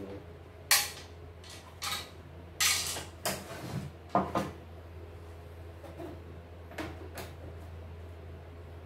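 Hard plastic parts and a screwdriver knocking and clattering on a wooden workbench while an embroidery machine is being taken apart: about eight sharp knocks, most of them in the first half, one a short rattle. A steady low hum lies underneath.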